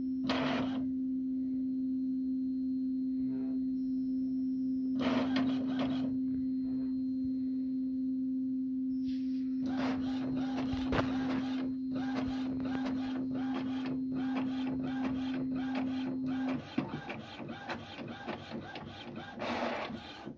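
Epson inkjet printer printing a page: brief whirring of the paper feed, then from about halfway the print head shuttling back and forth in quick repeated passes, about two a second. A steady hum runs under it and stops near the end.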